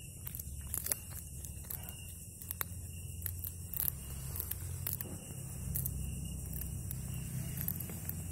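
A cat chewing and crunching food, irregular small clicks and crackles over a steady low hum.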